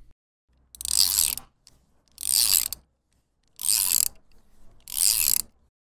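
Mechanical sound effect: four short, noisy strokes evenly spaced about a second and a half apart, each lasting under a second.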